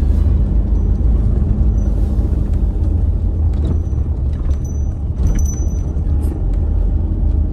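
A car's engine and road noise heard from inside the cabin: a steady low rumble, with a few clicks and rattles about halfway through.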